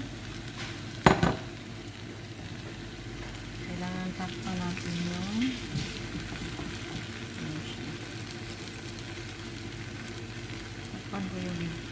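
Vegetable omelette frying in a pan, a steady sizzle, with a sharp knock about a second in.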